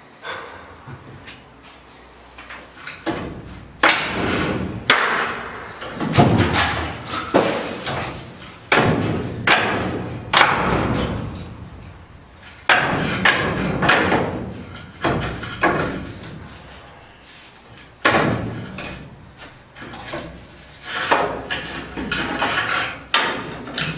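Heavy banging of metal during elevator demolition: about a dozen loud blows, irregularly spaced a second or two apart, each ringing and echoing away.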